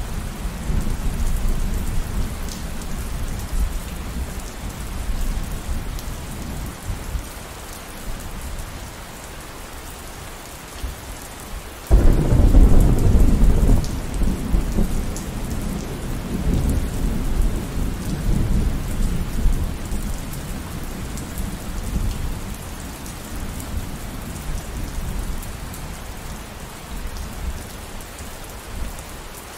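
Steady rain with rolling thunder. A low rumble dies away over the first several seconds. About twelve seconds in, a sudden loud thunderclap breaks and rumbles on for about ten seconds before fading back under the rain.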